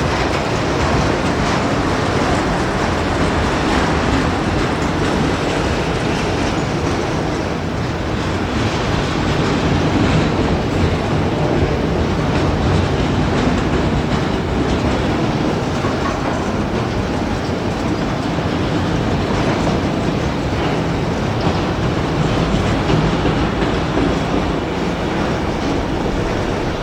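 CSX freight train's cars rolling past at track side, a steady loud rumble of wheels on rail.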